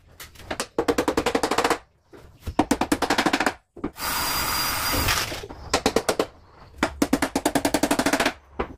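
Rapid rattling scrapes, about fifteen strokes a second, in bursts of about a second with short pauses between, and a steady hiss for about a second midway.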